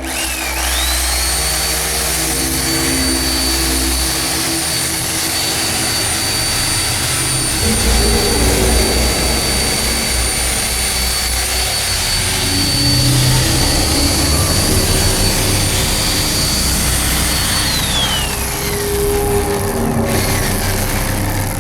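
Chainsaw engine revved up and held at high speed, a loud steady whine that winds down about 18 seconds in.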